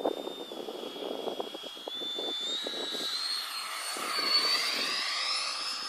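Electric ducted fan of an RC F-22 Raptor jet, a 70 mm ten-blade Changesun fan on a BL-32 motor, whining high as the model makes a low pass. The whine rises in pitch and swells as it flies by, loudest about four seconds in.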